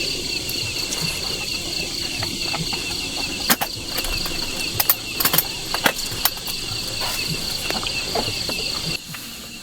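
A steady chorus of insects chirping in high, pulsing tones, with a few sharp clicks or knocks around the middle. The chorus stops shortly before the end.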